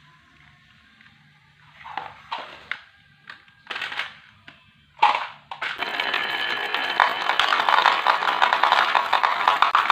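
Marbles on a wooden marble run: a few separate knocks, then a sharp clack about five seconds in, and from there a dense, steady clatter of many marbles rolling and clicking down the track.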